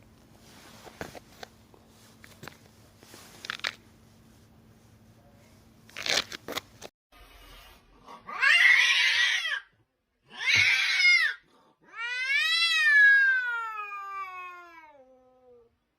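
Cat vocalising: after some faint tapping and rustling, two short harsh cries, then one long meow that falls steadily in pitch.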